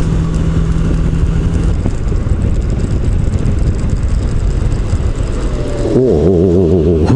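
Yamaha Majesty S scooter's single-cylinder engine running while riding, under a dense low rumble of wind on the microphone. Its steady tone fades into the rumble about two seconds in, and near the end the pitch wavers up and down.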